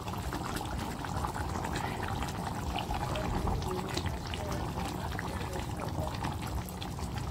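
Liquid poured from a steel bowl into a pot of simmering chicken curry, splashing and trickling over a continuous crackle of many small pops.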